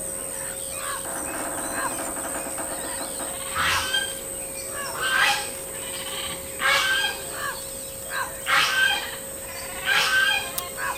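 Wild birds calling outdoors: a buzzy rattle early on, then loud, harsh repeated calls about every second and a half. A steady high-pitched tone and a low hum run underneath.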